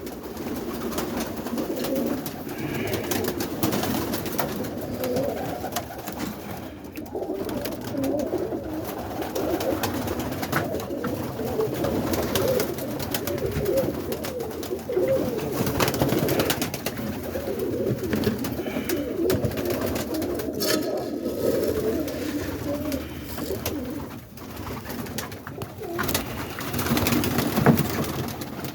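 Many roller pigeons cooing together inside a loft, a continuous overlapping murmur, with scattered clicks and rustles of birds moving.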